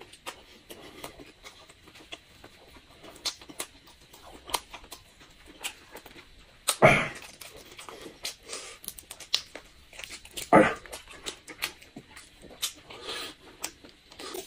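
Close-up eating sounds: wet chewing, lip smacking and many small clicks as boiled crayfish are peeled and sucked, with two louder mouth sounds about seven and ten seconds in.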